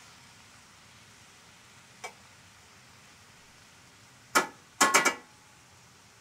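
Metal utensil clanking against a skillet: a light click about two seconds in, then one sharp clank and, half a second later, a quick run of about three more, each ringing briefly. Underneath, sliced cabbage from a cole slaw mix sizzles faintly in the pan.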